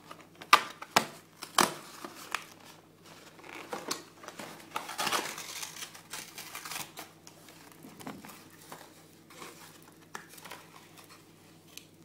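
A cardboard box of Kinder Surprise eggs being torn open by hand: a few sharp snaps of the card in the first two seconds, then a longer stretch of tearing and rustling as the flaps are pulled apart, followed by softer handling as the foil-wrapped eggs are lifted out.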